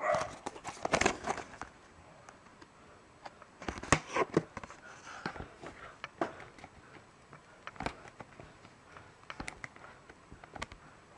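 Handling of a cardboard-and-plastic blister pack: scattered crackles, scrapes and taps, busiest in the first second and a half and again around four seconds in, then sparser small clicks as a fingernail picks at a corner of the cardboard backing.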